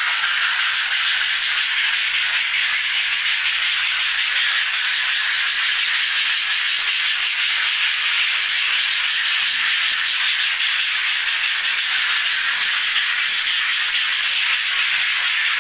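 A plastered wall being sanded by hand: a steady, even scraping that starts abruptly and keeps up without a break.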